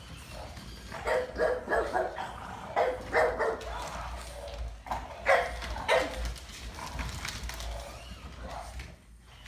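French bulldogs barking in short bursts, with clusters of barks about a second in, around three seconds, and again near five and six seconds.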